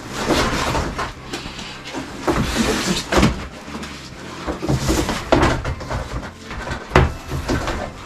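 Electrical cable being pulled by hand along ceiling framing, rustling and scraping against the foil bubble insulation and wood, with a few sharp knocks.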